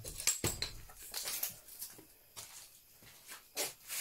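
Scattered rustles and knocks among plastic bags and containers, with a thud about half a second in.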